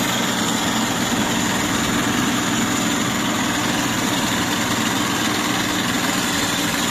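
An 8060 rice combine harvester's engine running steadily, a constant drone with no change in pitch or level.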